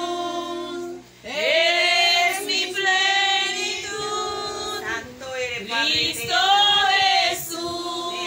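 A group of women singing together without instruments, in held, sustained phrases, with a short break about a second in.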